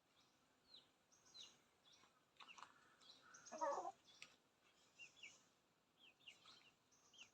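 Faint outdoor birdsong: many small birds giving short, high, quick chirps, with one louder, harsher call about three and a half seconds in.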